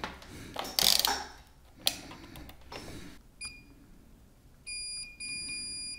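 Digital multimeter's continuity beeper: a short chirp, then a steady high beep held for about a second near the end, meaning the probed joint or trace is continuous. Earlier there is a rustle and a sharp click as the probes are handled and placed on the circuit board.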